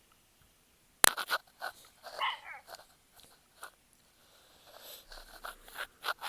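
Dogs in their shelter: a sharp knock about a second in, then scattered short crunches and clicks, with a brief high whimper about two seconds in.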